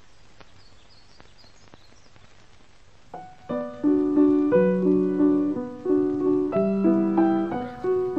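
Faint hiss with a few soft ticks, then about three seconds in keyboard music starts: a piano-like melody whose notes repeat in a steady pattern.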